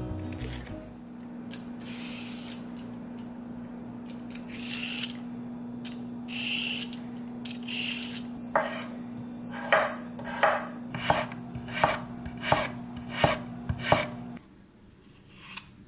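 Kitchen knife chopping on a cutting board: scraping and handling noises at first, then a steady run of about eight or nine chops, roughly one every half second to two-thirds of a second.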